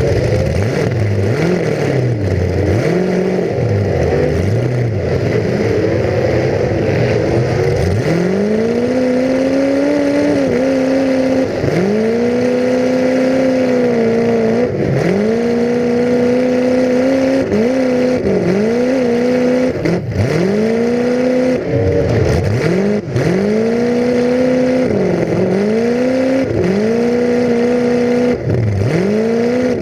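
Full-size demolition derby car's engine heard from inside the car, running low and uneven at first. From about eight seconds in it is floored again and again, each rev held high and then dropping sharply, every one to three seconds.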